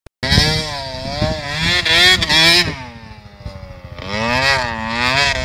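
Dirt bike engine revving up and down, its pitch wavering with the throttle; the revs ease off around three seconds in and climb again near the end.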